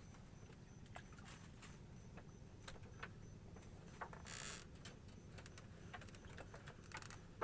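Faint scattered small clicks and knocks, with a brief rustle about four seconds in, over low background noise and a faint high pulsing.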